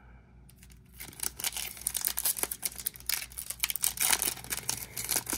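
Foil wrapper of a Topps baseball card pack being torn open and crinkled by hand, a dense crackling that starts about a second in.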